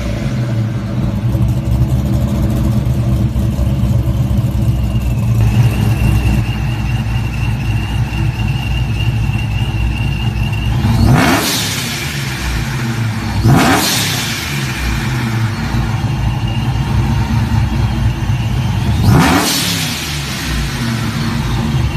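GMC Sierra's 6.0 L LS V8, fitted with a Texas Speed aftermarket camshaft, idling and revved in three quick throttle blips, about halfway through, a couple of seconds later, and near the end. A thin high whine holds for several seconds in the first half.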